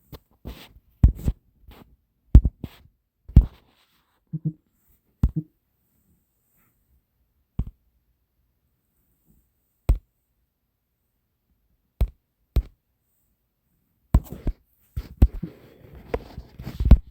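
Sharp taps and clicks at irregular intervals with dead silence between them: a quick run of them in the first few seconds, a few spaced single ones in the middle, and a busier cluster mixed with light rustling near the end.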